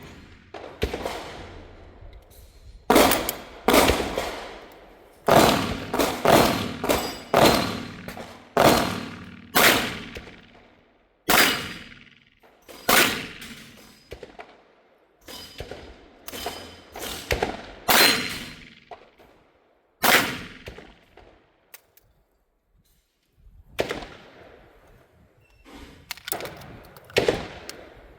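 Gunshots from a .410 revolver shotgun firing rifled slugs, about twenty sharp reports at uneven spacing, each with a ringing echo tail. They come thickest in the first half, with a pause of a couple of seconds before the last few shots.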